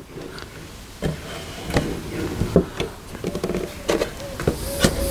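Scattered knocks, taps and rubbing as a composite crashbox is pushed and seated by hand onto the Lotus Elise's aluminium chassis.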